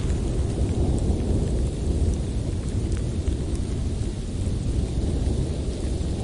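Blizzard wind blowing steadily in a forest, a deep low rumbling rush that swells and eases slightly, with faint ticks of snow or debris on top.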